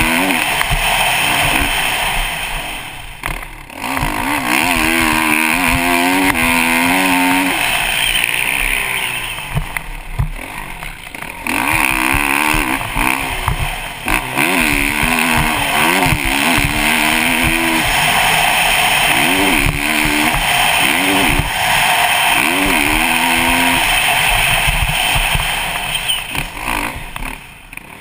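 Kawasaki KX450 single-cylinder four-stroke motocross bike ridden hard on a dirt track, its engine revving up and falling back again and again, with short drops off the throttle a few times. Steady wind rush from a helmet-mounted camera runs under it.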